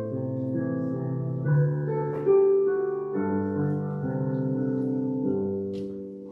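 Piano prelude played for meditation and prayer: slow, held chords changing every second or so, fading away near the end.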